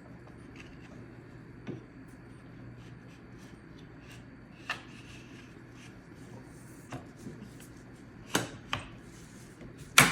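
Scattered clicks and knocks of the metal parts of an SKS rifle being handled and fitted to its wooden stock: a few light taps, a pair of knocks about two seconds from the end, and a sharp, loud knock at the very end.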